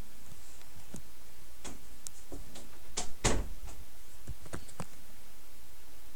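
Handling noise from a handheld camera: scattered light clicks and rubs, with a louder knock and rub about three seconds in, over a low steady hum.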